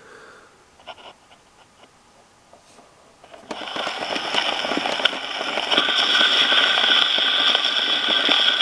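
A few light handling clicks, then about three and a half seconds in the steel needle of a hand-cranked Phonette gramophone's soundbox drops onto a small 78 rpm shellac record, and loud, scratchy, hissing surface noise comes through the acoustic soundbox as the record turns.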